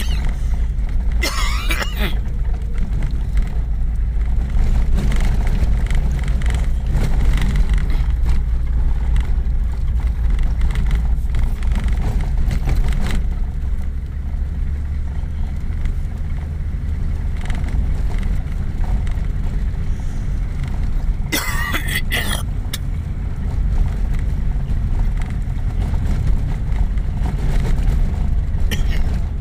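Car engine and tyres rumbling steadily on a rough dirt road, heard from inside the cabin. Two brief higher-pitched sounds cut in, about a second and a half in and again just past twenty seconds.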